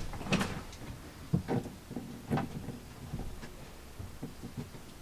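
Scattered light knocks and clinks, about one a second, of chainsaw chains being handled and moved where they hang.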